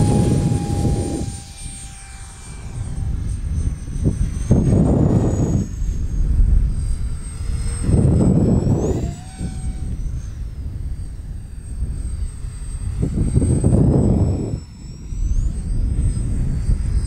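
The twin 50mm electric ducted fans of a radio-controlled Boeing 737 model in flight, giving a thin high whine that shifts in pitch and twice rises sharply as the throttle is opened. Low rushing surges come every few seconds, and they are louder than the whine.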